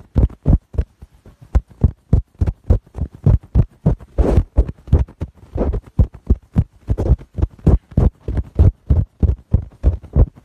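Ultrasonic cleaning pen working on a red wine stain in a shirt, its tip pressing repeatedly into the fabric in a steady run of dull thuds, about four a second.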